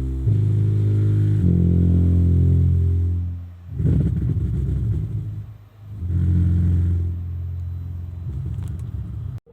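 Bass-heavy music: deep held bass notes that change pitch every second or so, with a rougher rumbling stretch about four seconds in.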